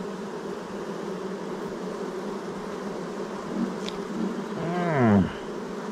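A honeybee colony buzzing steadily around frames of comb lifted from an opened swarm trap, with one louder buzz sweeping down in pitch near the end.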